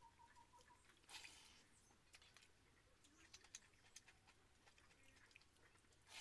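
Near silence: faint wet squishing and soft clicks of a hand kneading water-soaked rice (basi pakhala) in a steel pot, with a short louder squelch about a second in and again at the end. A faint rapid chirping is heard during the first second.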